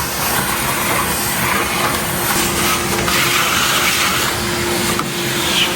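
Loud, steady running of farm machinery: a continuous hiss with one constant hum underneath.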